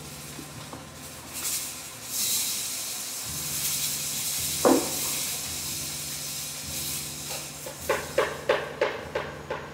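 A performer's wordless breathing sounds on stage: a long breathy hiss for about two seconds, a single knock about halfway, then a quick run of short gasping vocal bursts, about five a second, near the end. A low steady hum from the stage sound system runs underneath.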